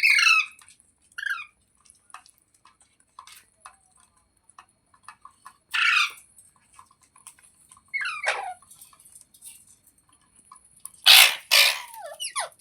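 Rose-ringed parakeet calling in short bursts: quick falling chirps near the start, a harsh squawk about six seconds in, another run of falling chirps a little later, and a loud harsh screech near the end.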